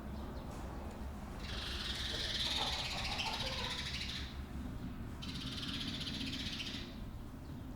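Farmyard ambience: a long, high, rapidly pulsing buzzing call starting about a second and a half in and lasting about three seconds, then a second, shorter one from about five to seven seconds, over a steady low hum.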